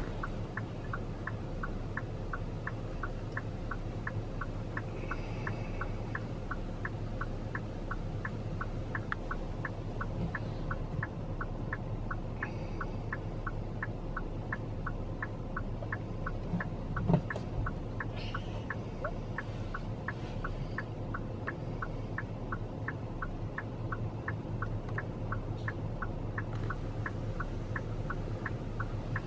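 Car indicator clicking evenly about twice a second over the low hum of the engine inside the cabin, with one knock partway through.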